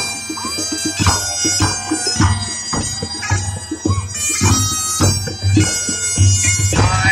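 Live music: hand-held frame drums beating a steady rhythm under a sustained droning wind instrument.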